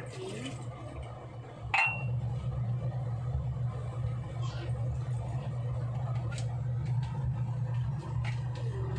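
Cream sauce heating in a steel pan: faint scattered ticks of light sizzling over a steady low hum, with one sharp metallic clink about two seconds in.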